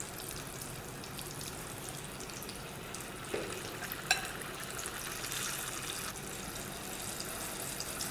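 Cornflour-coated boiled chickpeas deep-frying in hot oil in a kadai, a steady fizzing sizzle. About halfway through come two light knocks of a steel ladle against the pan.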